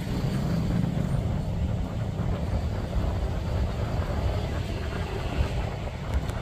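Diesel locomotive engine running with a steady low rumble.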